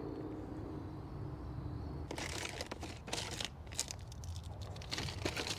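Crinkling and crackling of plastic being handled, starting about two seconds in, over a low steady rumble.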